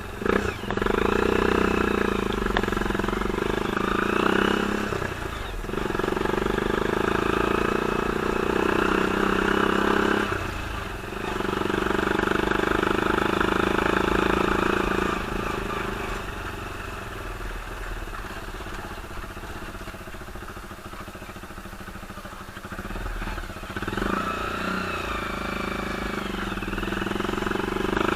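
Engine of a homemade off-road buggy running along a dirt road, pulling steadily in stretches of several seconds. It drops off briefly about five and ten seconds in, eases off for a longer spell past the middle, then picks up again near the end.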